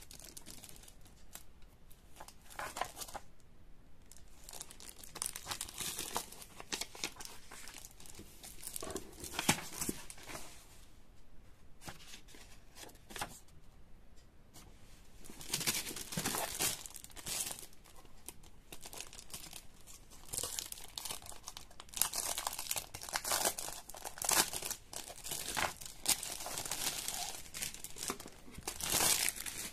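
Clear plastic packaging crinkling and rustling as it is handled and pulled open, in irregular bursts with short pauses.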